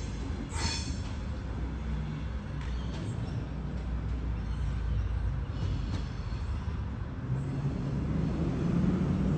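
Sydney Trains Tangara electric multiple unit pulling away, a steady low rumble with a few faint clicks as its wheels cross the points.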